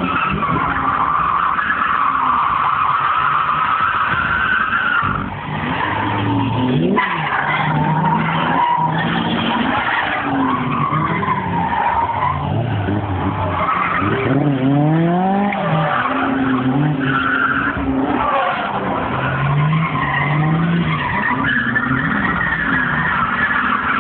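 Several drift cars sliding at once: engines revving up and down under throttle while the tyres squeal through long slides.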